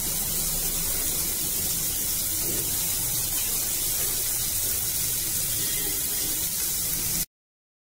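Chopped cabbage, carrot, capsicum, beans and onion sizzling in hot oil in a frying pan as they sauté: a steady hiss that cuts off abruptly near the end.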